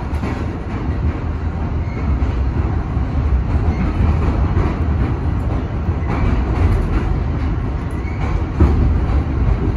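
Inside an R62A subway car running through a tunnel: a loud, steady rumble of wheels on rail, with a few sharp clacks, the loudest one near the end.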